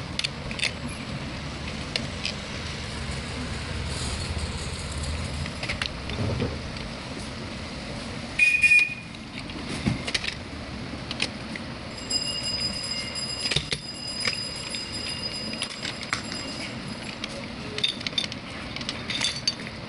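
Battery-powered toy domino train running over a hard surface: its small motor runs steadily while plastic domino tiles click and clatter. A louder clatter comes a little before halfway.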